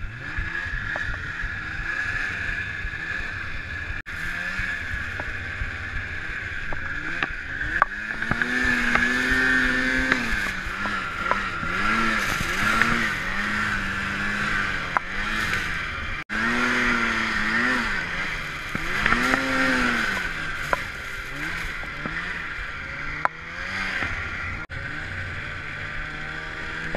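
Snowmobile engine running under way, revving up and down again and again as the throttle is opened and eased off, over a steady hiss of track and snow.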